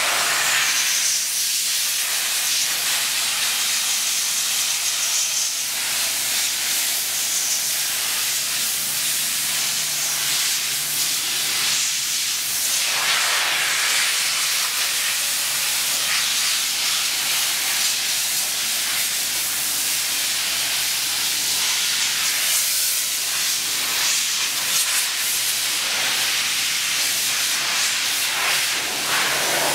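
Compressed air hissing from a blow nozzle on an air hose, a steady hiss that swells now and then, drying freshly gold-coated parts on their racks.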